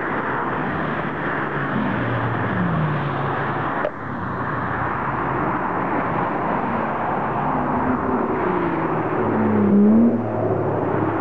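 Sports car engines on a race track. First the Spyker C8 Aileron's V8 is heard heading away, its note falling. After an abrupt cut about four seconds in, another car's engine comes up and passes close, loudest just before the end, with its pitch rising and falling.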